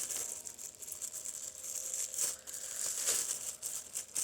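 Irregular crinkling and rustling of packaging being handled, with louder surges about two and three seconds in.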